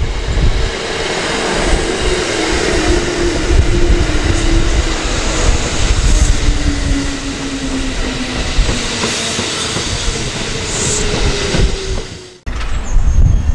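Kintetsu electric train running through the station, with a motor whine that sinks slowly in pitch. The sound breaks off suddenly about twelve seconds in, then comes back just as loud.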